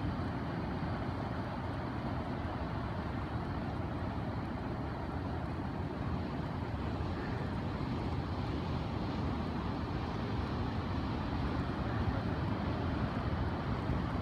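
Steady, deep outdoor noise of breaking ocean surf and wind, with no distinct events.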